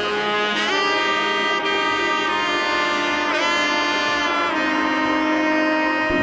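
Closing music: a saxophone-like lead plays a melody of long held notes, changing note about every second.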